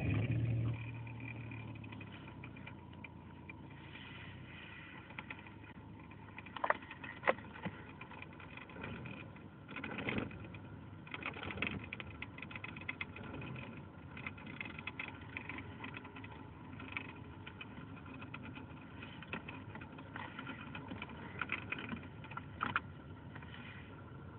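Citroën XM running at idle after a loud surge in the first second, with a steady hum and whine and irregular sharp clicks and ticks scattered through it: the strange noise the car is making.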